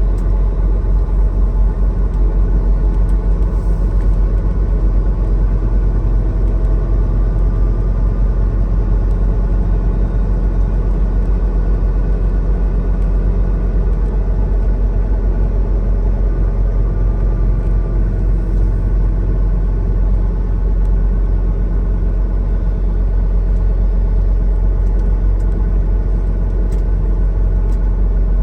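Semi truck's diesel engine running with a steady low rumble, heard from inside the cab.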